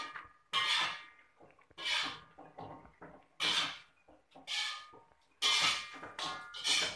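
Metal slotted spatula scraping and clanking against a wok while chicken in sauce is stirred: repeated scrapes, roughly one a second, each with a brief metallic ring.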